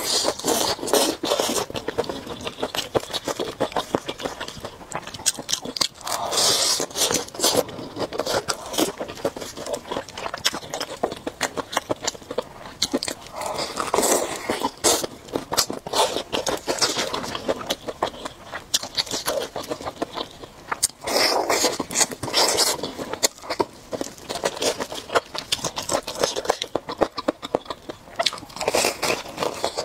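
Crunching and chewing of crispy fried chicken batter, close-miked, with wet mouth sounds. It comes in louder bouts every several seconds, with small crackly clicks of chewing in between.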